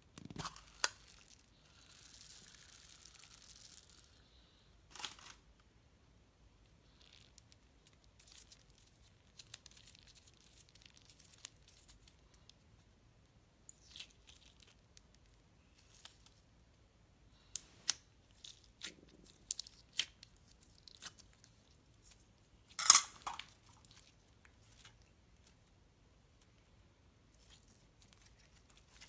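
Hands handling and opening a clear plastic egg-shaped slime container filled with foam beads: a short peeling hiss, then scattered clicks and crinkling of the plastic shell and beads, with the loudest crackle a little over two-thirds through.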